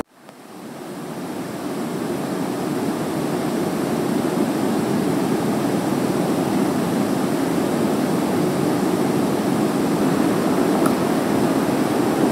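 Steady rushing background noise with no distinct events, fading in from silence over the first couple of seconds.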